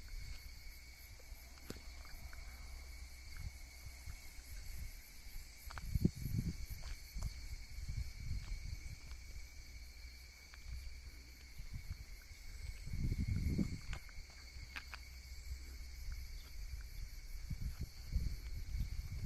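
Insects chirring steadily in a high, continuous chorus. Low rumbles swell and fade underneath, loudest about six and thirteen seconds in.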